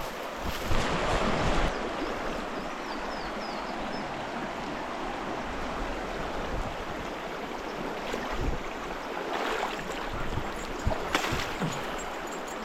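Steady rush of a creek's current running through shallow water, louder for a moment about a second in, with a few faint knocks.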